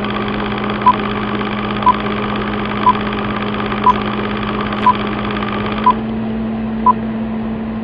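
Old film projector sound effect: a steady mechanical whirr over a low hum, with a short high beep about once a second. The top of the whirr thins out about six seconds in.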